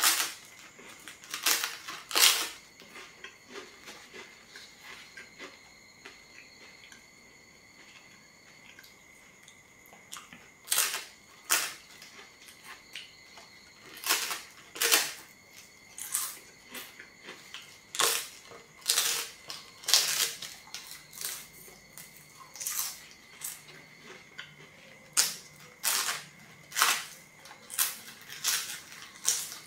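Crunching bites into thin, crisp flatbread, each a sharp crackle, with quieter chewing between. After the first few bites there is a lull of several seconds, then bites come about once a second.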